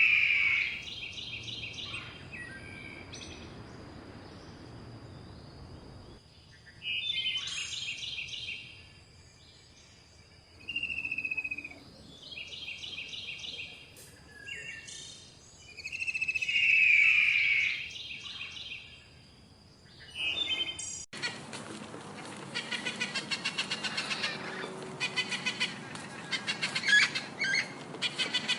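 Songbird song in short repeated phrases of trilled notes, separated by pauses. About 21 seconds in it cuts abruptly to a different recording: a dense, fast stream of chirps.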